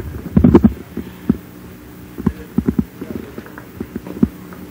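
Irregular soft thumps and knocks, a cluster about half a second in and scattered ones after, over a steady low hum.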